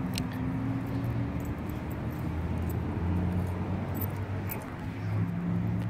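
A motor vehicle's engine running steadily as a low hum, with scattered faint clicks over it.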